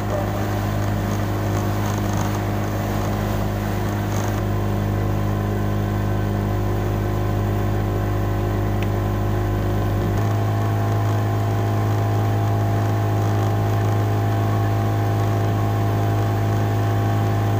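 Yamaha 40 hp outboard motor running steadily under way, a constant engine drone. Its note shifts slightly about four seconds in, then steps a little higher about ten seconds in.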